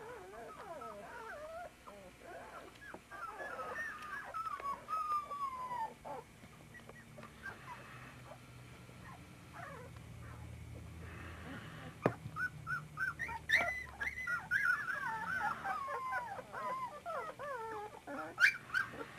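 A litter of 24-day-old puppies whimpering and whining, many short high cries falling in pitch and overlapping, in two busy bouts with a quieter stretch between. A sharp click midway and a louder one near the end.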